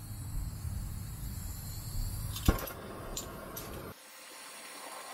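A low rumble, then a handheld propane torch lit with a sharp click about halfway through, followed by the hiss of its flame, which goes on fainter after a cut near the end.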